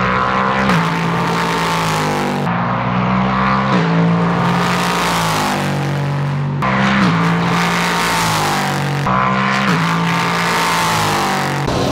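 Race cars running past at speed on the circuit, their engine notes climbing and then dropping in sharp steps as they shift up through the gears, in two waves of cars with the second about halfway through.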